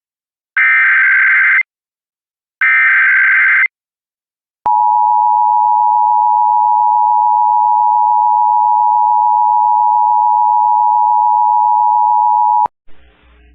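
Emergency Alert System broadcast opening: two of the digital SAME header bursts, each a second-long burst of buzzy data tones. About a second later comes the EAS two-tone attention signal, a loud steady beep held for about eight seconds that cuts off suddenly.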